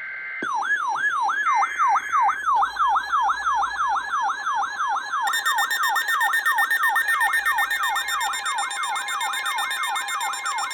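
Emergency Alert System alert tones: a burst of the SAME data header's warbling two-pitch tone, then a fast falling siren-like yelp repeating about four times a second. From about five seconds in, the steady two-tone EAS attention signal sounds with it.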